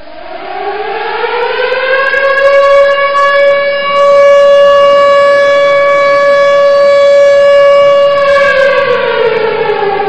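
A loud siren winds up in pitch over about two seconds, holds one steady tone, then begins winding down about eight seconds in.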